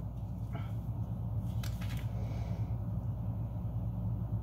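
Steady low room hum, with a few brief rustles and clicks between about half a second and two seconds in as items are handled in a packed box.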